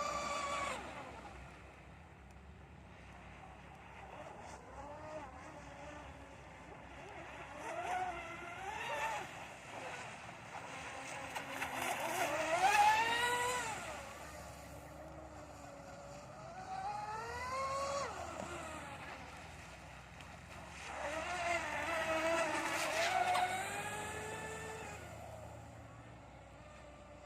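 Twin 3660 3300kv brushless motors of an RC catamaran speedboat whining, the pitch rising and falling in several swells as the boat is throttled up and passes by; loudest about thirteen seconds in.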